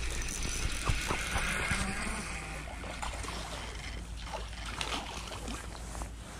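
A hooked crappie being reeled up to the boat and splashing at the surface, with short splashes and clicks over a steady rushing noise and a low hum.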